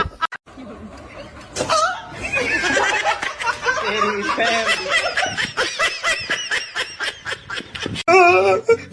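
A person laughing hard: a long run of quick, repeated bursts of laughter. There is an abrupt change near the end.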